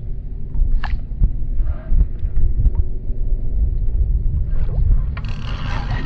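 Wind buffeting the microphone, a heavy uneven low rumble with a few faint short chirps above it. About five seconds in, a louder steady hiss joins.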